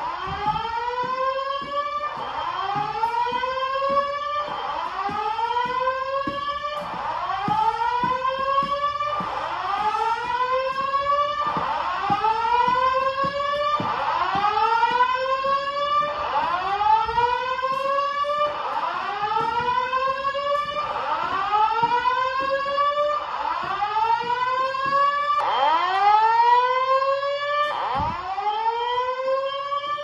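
Fire alarm voice evacuation speakers on a Simplex 4100ES system sounding the whoop tone: a loud rising sweep that repeats about every two and a quarter seconds, the evacuation signal.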